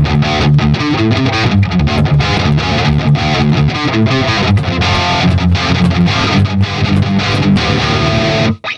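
Electric guitar played through the Neural DSP Fortin Nameless Suite high-gain amp-sim plugin at its default settings, riffing with many quick picked notes and stopping abruptly near the end. The plugin is passing the signal, a sign that it installed and works.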